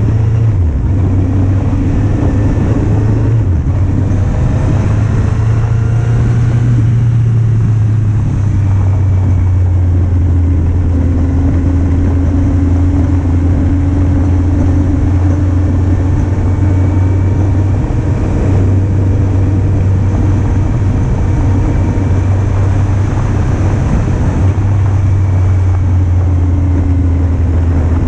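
2008 Kawasaki Z750's inline-four engine running steadily under way, its pitch climbing several times in the first few seconds as it accelerates.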